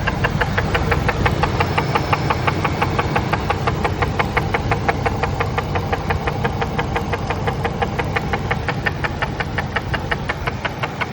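Ford SVT Lightning V8 idling with a loud, rapid, evenly spaced knocking that sounds like rod knock. The knocking comes from a failed valve cover: the PCV valve part broke off and is loose inside the engine.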